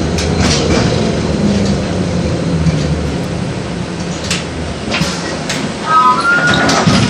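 Inside an LVS-86K tram: running rumble that dies away after about three seconds as the tram slows, with scattered clatters and knocks. A brief rising squeal comes about six seconds in.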